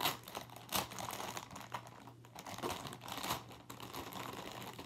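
Plastic packaging crinkling and crackling in irregular bursts as a squishy toy is unwrapped from its bag.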